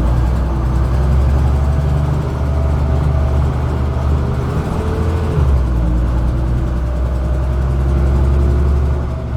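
Dennis Dominator double-decker bus's diesel engine pulling under load, with a thin whine rising in pitch. About five and a half seconds in there is a brief break, as at a gear change, and then the engine note and the whine climb again.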